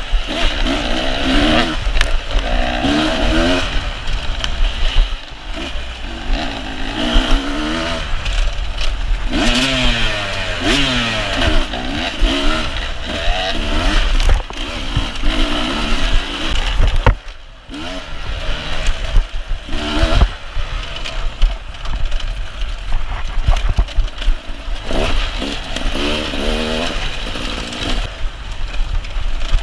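Beta 300 RR two-stroke enduro motorcycle engine, heard close from on board, revving up and down again and again as the throttle is worked along a tight trail. About halfway through the engine briefly drops away, and a few sharp knocks and scrapes of brush against the bike come through.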